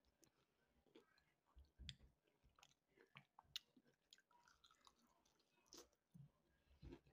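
Faint, irregular chewing of fried chicken, with scattered small mouth clicks and smacks.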